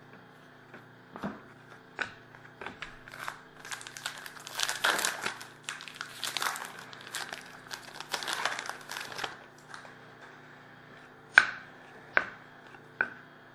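Trading cards and foil card packs handled by hand: a stretch of crinkling and rustling in the middle, then a few sharp taps near the end.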